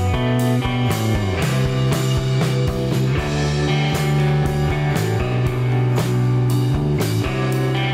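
Background rock music with guitar, a stepping bass line and a steady drum beat.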